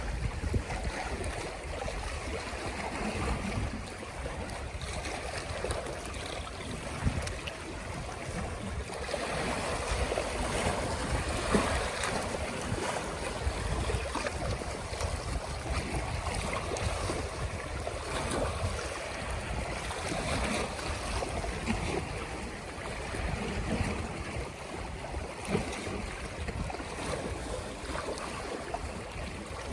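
Small sea waves washing and lapping against the shore in a steady, uneven wash, with wind gusting on the microphone.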